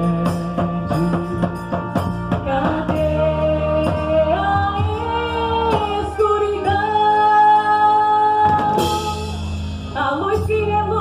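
Festa junina quadrilha song with a singer. The singer holds long, drawn-out notes over the band, a crash comes near the end, and the beat picks up again.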